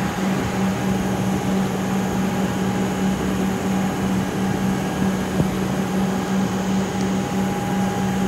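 Comeng electric train standing at the platform, its onboard equipment giving a steady hum: a low drone with a thin high tone over it.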